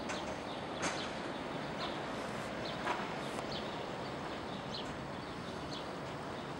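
Cowbells clanking irregularly in the alpine pasture, small metallic clinks over a steady outdoor hiss. Two louder knocks stand out, about a second in and about three seconds in.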